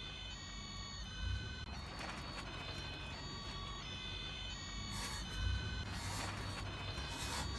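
Electronic siren tones from a toy fire engine's sound module, thin beeping notes repeating in short on-and-off bursts over a low rumble.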